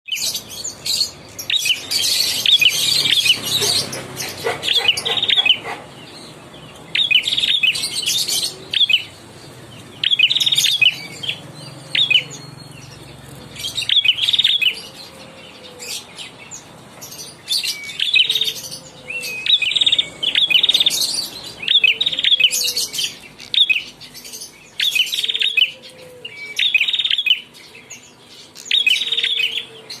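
A young prinia (prenjak klawu) singing vigorously, repeating short, high chirping phrases with brief pauses between runs. A burst of rustling noise sounds under the song about two to five seconds in.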